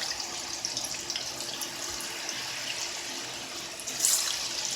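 Cut raw potato fries frying in hot oil: a steady sizzle and bubbling with fine crackles, as the moisture in the potatoes makes the oil bubble up. It starts suddenly and swells again about four seconds in.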